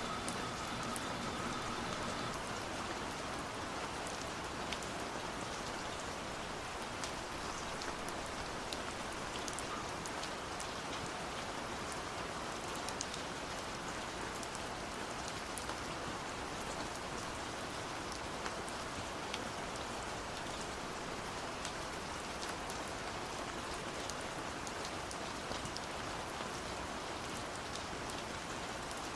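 Steady rain, with scattered drops ticking on a surface.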